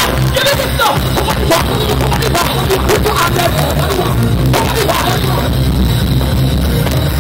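Live dancehall music played loudly through a stage PA system, with heavy bass and a steady drum beat.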